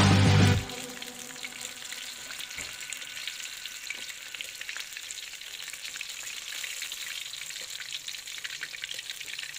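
Wontons deep-frying in hot oil in a wok: a steady sizzle with fine crackling. Background music cuts off about half a second in.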